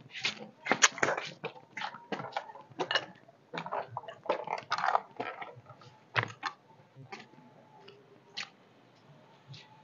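Irregular scuffing and gritty steps of rubber flip-flops on a dusty concrete roof, then a few sharper knocks as a wooden ladder is climbed.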